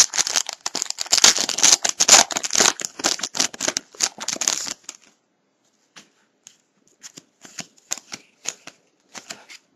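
Foil wrapper of a 2007-08 Bowman Draft Picks & Stars basketball card pack tearing and crinkling as it is opened, for about five seconds. After that come scattered light clicks and rustles of the cards being handled.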